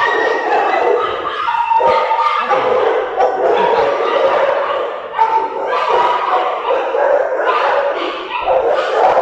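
Many Rottweilers barking, yelping and whining at once in their kennel pens, a continuous overlapping din.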